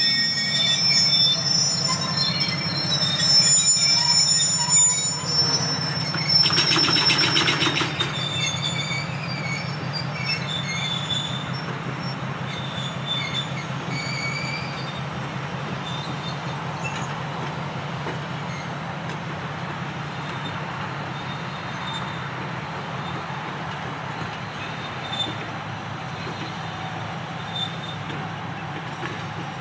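Freight cars rolling past on rails, their wheels squealing in thin high tones that are strongest over the first several seconds and then thin out, over a steady low rumble. A louder grating burst comes about six seconds in.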